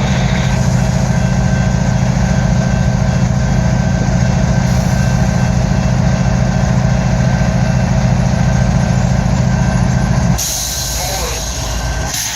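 Locomotive air horn, a Nathan K5HLL-R3, blowing one long steady chord that cuts off abruptly about ten seconds in. Its tone is choked and low because the horn is plugged up. Train running noise carries on after it.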